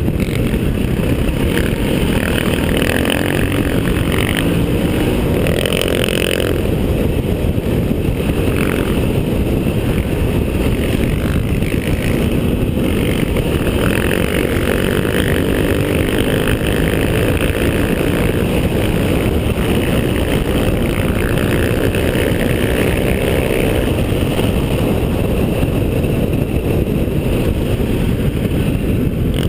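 Enduro motorcycle running at high speed off-road, its engine note shifting a little with the throttle, mixed with heavy wind rush on the onboard microphone.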